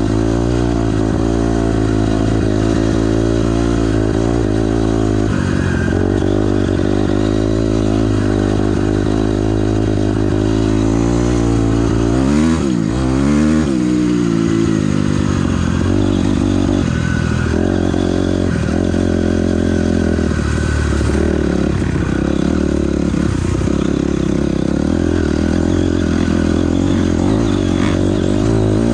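A 2006 Honda CRF250R dirt bike's single-cylinder four-stroke engine being ridden, the throttle opening and closing so its pitch keeps wavering. About halfway through, the pitch drops sharply and then climbs back up.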